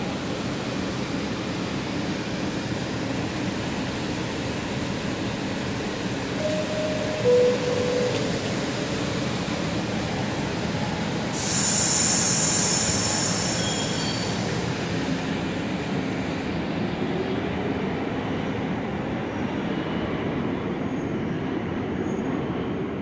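R62A subway train standing in the station and then departing, with a steady rumble throughout. A falling two-note door chime sounds about seven seconds in, a loud burst of air hiss comes about eleven seconds in, and a rising motor whine follows as the train pulls away.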